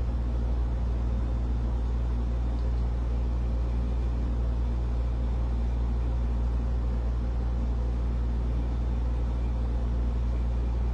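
Steady low hum with an even hiss over it, unchanging and with no distinct events.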